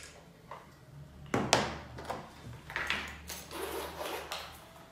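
A phone set down on a wooden table and a leather clutch bag picked up and handled: a few knocks with rustling between them, the loudest knock about a second and a half in.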